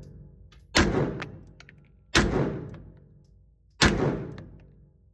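Three 9mm pistol shots from an FN Browning Hi-Power, fired one at a time about a second and a half apart, each ringing out and fading. They are part of a five-round test fire.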